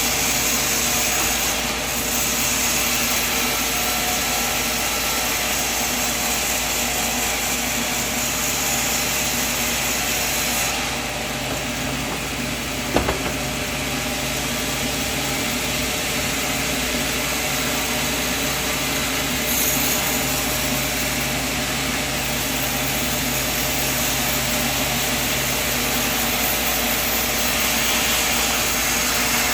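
Sawmill machinery running steadily while sawing wood: a continuous mechanical noise with a constant hum, and a single sharp knock near the middle.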